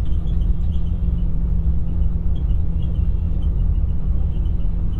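Steady low rumble of engine and tyre noise inside the cabin of an intercity coach bus moving at highway speed.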